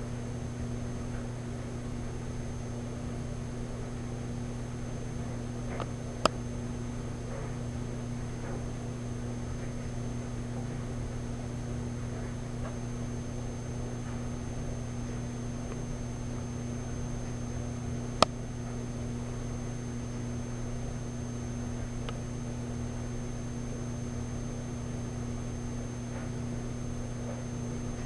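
Steady low electrical hum with a faint, thin high-pitched whine over it, broken twice by a single sharp click about twelve seconds apart.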